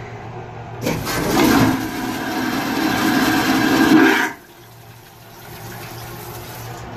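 Shipboard push-button toilet flushing: a loud rush of water starts about a second in, lasts about three and a half seconds and cuts off abruptly. The toilet flushes freely, its clog cleared.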